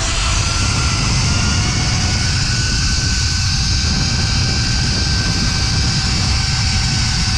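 Zipline trolley pulleys running along the steel cable, a steady high whine over a loud rush of wind on the microphone, the whine having risen in pitch as the rider picked up speed.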